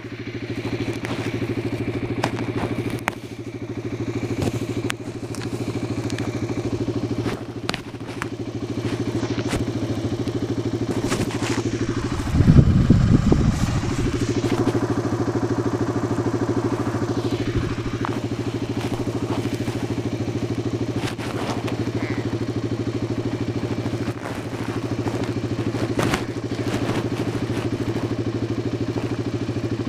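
Arctic Cat 500 ATV's single-cylinder engine idling steadily, with scattered light clicks and a brief, louder low burst about twelve seconds in.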